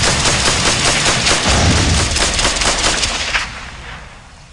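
Rapid rifle fire, shots following one another in a dense string, with a deeper rumble about a second and a half in. The firing stops suddenly about three and a half seconds in.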